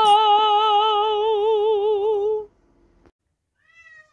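A woman's voice holds one long sung note that widens into vibrato and stops about two and a half seconds in. Near the end a short cat meow begins.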